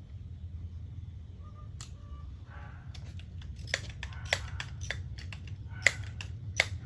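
Crosman 1377 pellet pistol being handled and reloaded: a run of small metallic clicks and clacks from the bolt and action, starting about two seconds in, with the sharpest clacks near the end, over a steady low rumble.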